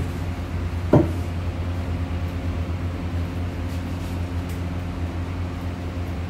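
Steady low mechanical hum, with one short knock about a second in.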